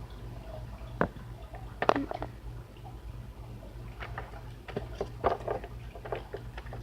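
Small plastic toy figurines being handled and set down, giving scattered light clicks and taps over a steady low hum.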